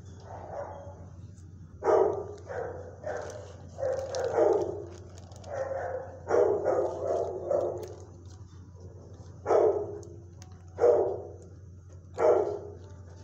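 A dog barking repeatedly in a kennel: a quick run of barks for the first several seconds, then three single barks more than a second apart near the end.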